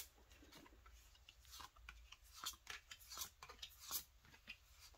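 Tarot cards being laid down one after another on a cloth-covered table: a quick run of faint card flicks and soft clicks.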